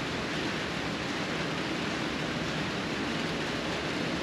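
Rain falling on a corrugated metal roof: a steady, even hiss.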